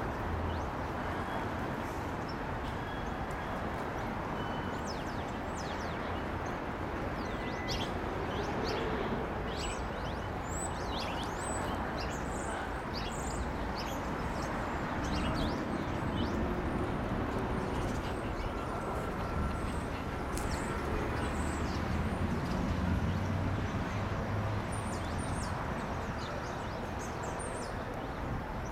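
Outdoor city background: a steady hum of traffic with small birds chirping in short, repeated calls, thickest in two spells, one in the first half and one near the end.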